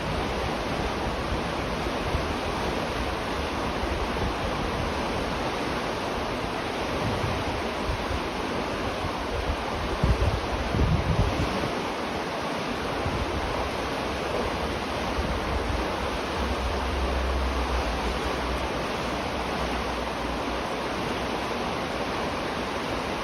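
River water flowing in a steady, even rush, heard from beneath a bridge. Brief low rumbles come about ten seconds in and again a few seconds past the middle.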